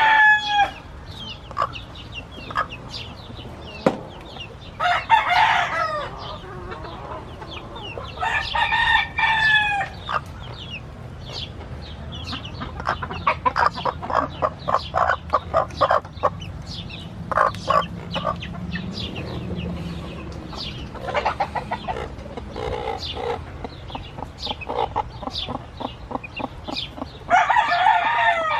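Roosters crowing about four times, long calls that drop in pitch at the end, with hens clucking steadily in between, in a busy run through the middle.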